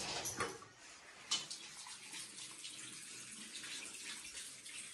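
Bathroom washbasin tap running in a thin stream into the ceramic basin, with a golden retriever lapping water from the stream. A sharp knock about a second and a half in.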